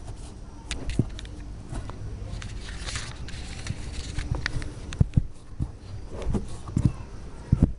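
Hand work at a drilled hole in a plastic water tank: irregular clicks, scrapes and knocks of hard plastic, growing louder and closer together in the second half, over a low rumble.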